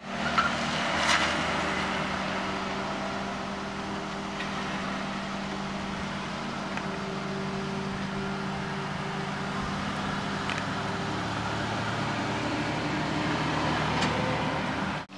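Car engine running steadily as a sedan drives up and turns into a driveway, with tyre and road noise.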